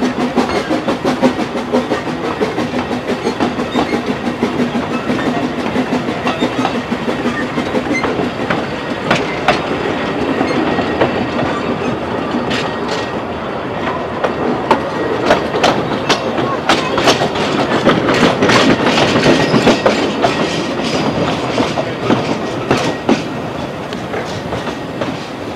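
Narrow-gauge steam train of the Talyllyn Railway running slowly, heard from aboard, its wheels clicking over the rail joints, with the clicks coming thickest through the middle and later part.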